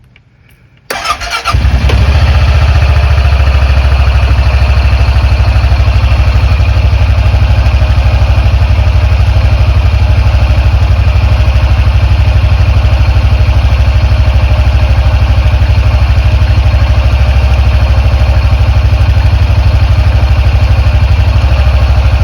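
Honda Pioneer 700 side-by-side's single-cylinder engine started about a second in: a short crank, then it catches and settles into a loud, steady idle, running on fresh oil just after an oil change.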